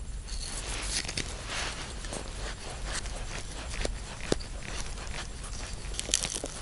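Rustling cord, scattered light clicks and crunching snow as a winter tent's guy line is threaded and fastened to a stake by hand, over a low steady rumble.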